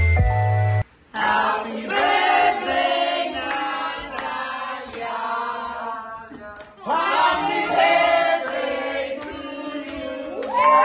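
Electronic music breaks off within the first second. A small group then sings a birthday song together, clapping along.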